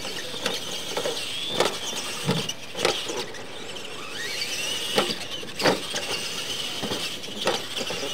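Electric Clod Buster-style RC monster trucks racing on a dirt track: a high motor and gearbox whine that rises and falls as they accelerate and slow. Several sharp knocks and clacks come as the trucks hit ramps and land.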